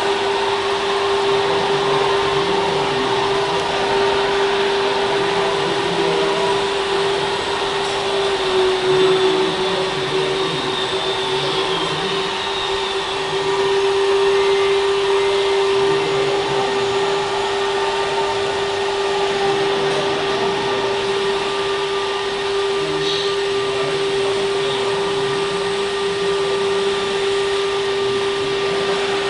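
Hydraulic pump of a radio-controlled model Liebherr R 956 excavator whining steadily at one pitch while the excavator digs.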